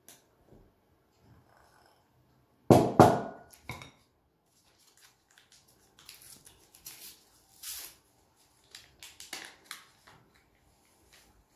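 A loud knock of glass and metal bowls being handled about three seconds in, followed by a few light clicks. Then a run of short papery rustles and crinkles as a small paper packet of baking powder is handled and torn open.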